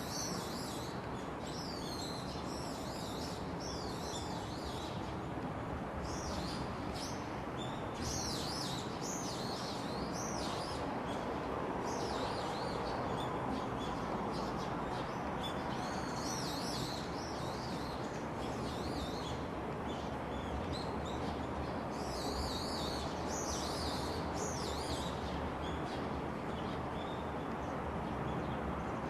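Songbirds singing and chirping in short, high, twittering phrases that repeat every second or two, over a steady low background noise.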